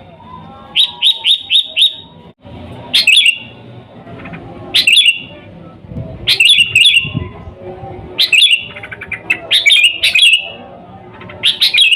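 Sooty-headed bulbul (kutilang) calling loudly in short, bright chattering phrases: a quick run of four notes about a second in, then bursts every second or two. A faint low background murmur lies underneath.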